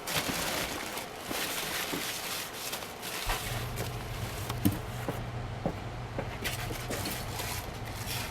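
Rustling and scraping of parts being handled, with scattered light clicks and knocks. About three seconds in a steady low hum starts and keeps going.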